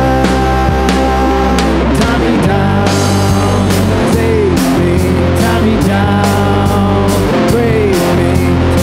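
Rock band recording: electric guitar holding chords and notes over bass guitar and a steady drum beat, with a couple of notes sliding down in pitch partway through.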